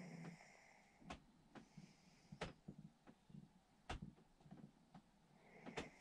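Near silence in a quiet pause between a sleeping man's snores, the tail of one snore fading at the very start, with four faint sharp clicks about a second and a half apart.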